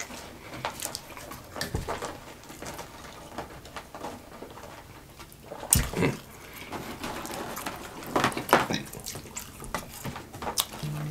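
Close-up eating sounds: wet chewing of fries with scattered short clicks and taps, a few of them louder about six and eight and a half seconds in.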